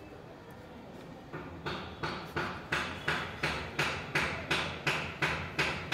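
A rhythmic run of about a dozen evenly spaced strokes, about three a second, starting a little over a second in and growing louder, each one sharp at the start and dying away quickly.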